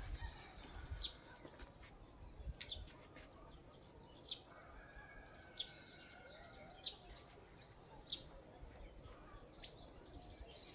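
Faint, short high chirps of small birds, one every second or so, over a low steady hiss.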